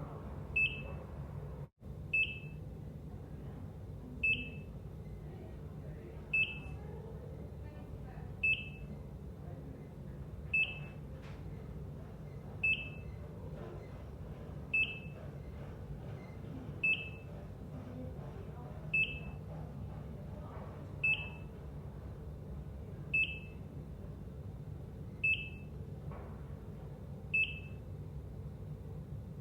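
ECG heart monitor beeping: a short high-pitched beep repeating evenly about every two seconds, over a steady low background hum. The background cuts out for an instant near the start.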